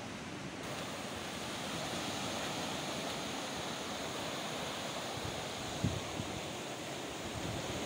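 Sea surf washing onto a sandy beach, a steady rush, with wind on the microphone. Two brief low thumps on the microphone about six seconds in.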